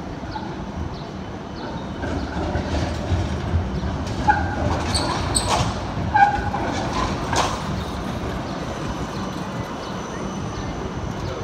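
Melbourne Z3-class tram rolling slowly past at close range: a low rumble of its motors and its wheels on the rails, which grows louder about two seconds in. A few short squeals come around the middle, followed by a sharp clunk from the track.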